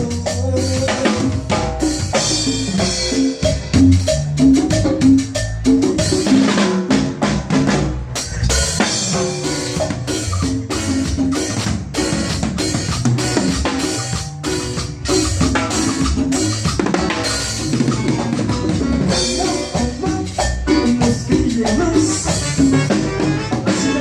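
Latin band music with the drum kit to the fore: a run of bass drum and snare hits over pitched instruments.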